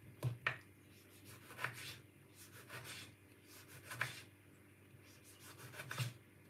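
Faint light knocks and rubbing scrapes from kitchen things being handled at a wooden cutting board, a few scattered strokes a second or two apart.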